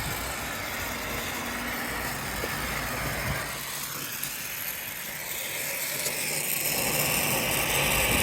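Acetylene torch flame hissing steadily as it heats a pipe seam for soldering, growing a little louder near the end.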